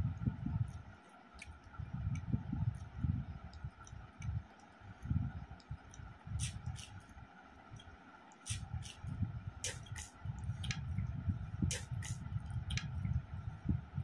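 Fingers squishing and kneading rice and fish head curry on a plate, with soft, uneven low thuds throughout and a run of sharp clicks in the second half.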